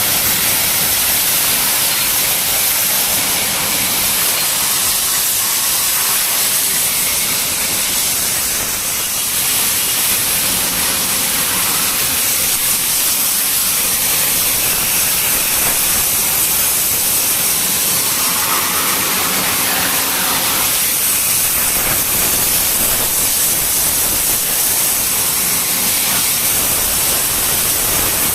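Jet pump spraying a steady high-pressure stream of water, a loud, continuous hiss.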